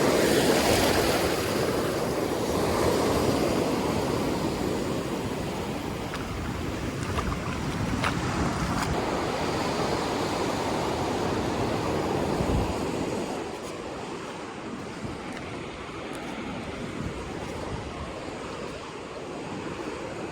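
Rough ocean surf breaking and washing up the beach, with wind. It gets quieter about two-thirds of the way through.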